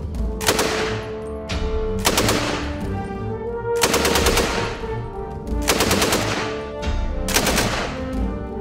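Machine gun firing about five short bursts of automatic fire, evenly spaced, over background music.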